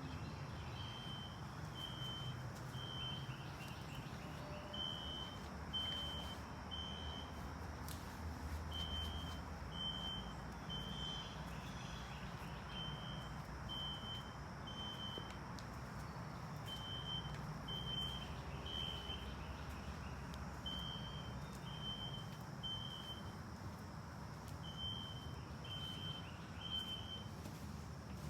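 Recorded System Sensor SpectrAlert Classic fire alarm horn (filtered DC) played from a tablet, sounding high beeps in sets of three with a short pause between sets, repeating about every four seconds: the evacuation signal. A steady low rumble runs underneath.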